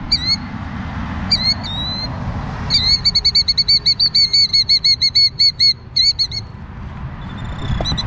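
Killdeer giving alarm calls beside its nest on the ground: a few single shrill calls, one drawn-out call that falls in pitch, then a fast run of about seven notes a second lasting some three seconds.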